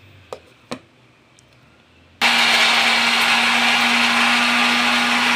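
Two clicks as the lid goes onto the mixer jar, then an electric mixer-grinder switches on about two seconds in and runs loud and steady with an even hum, grinding coconut, roasted chana dal and dried red chillies into chutney.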